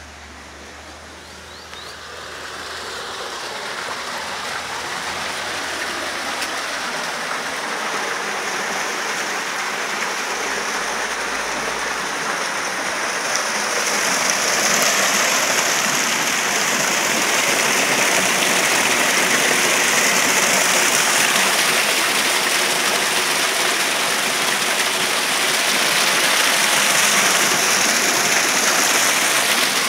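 Water rushing and splashing down a stone channel, a steady hiss that grows louder over the first half and then stays loud.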